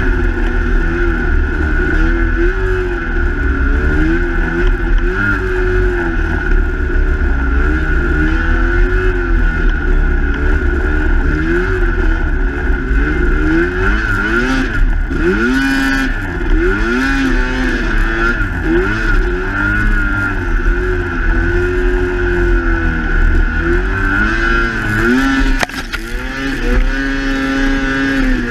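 Snowmobile engine running under riding load, its pitch rising and falling again and again as the throttle is worked. A steady high whine runs under it.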